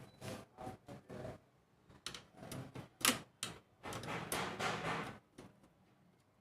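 Irregular plastic clicks, knocks and scraping rattles from parts of an HP LaserJet 1020 laser printer being handled and taken apart, with one sharp click about three seconds in and a longer scraping rattle a second later.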